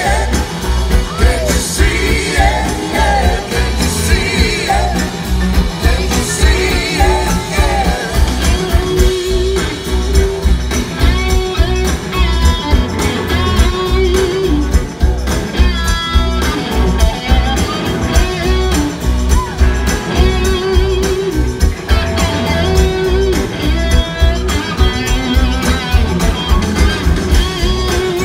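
A large blues-rock band plays live: electric guitars, bass, drums and horns, recorded from the audience. Singing comes in the first several seconds, then sustained electric guitar lines ride over a steady driving beat.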